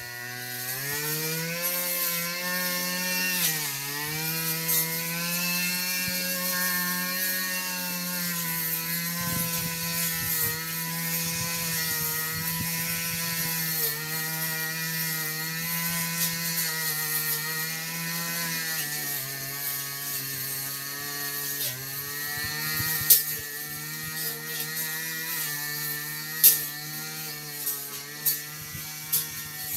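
Brush cutter engine running at high speed while clearing weeds, its pitch dipping briefly a few times, with a few sharp clicks near the end.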